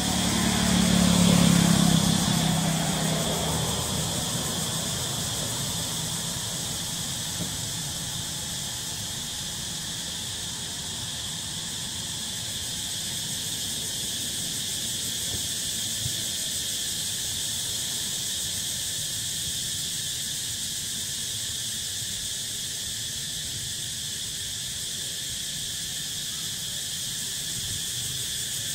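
Steady high-pitched insect drone, with a motor vehicle passing in the first few seconds, its low rumble swelling to a peak about one and a half seconds in and fading by about four seconds.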